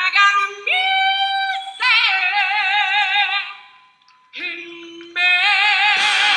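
A woman singing solo into a microphone, long held notes with a strong vibrato. About four seconds in the voice drops away almost to nothing, then comes back softly and rises into another long held note near the end.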